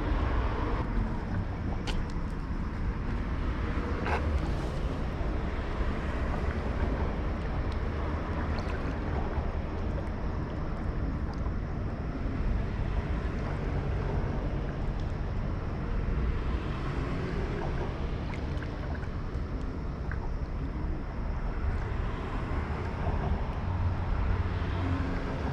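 Steady low rumble of wind buffeting the microphone outdoors, with a few faint clicks.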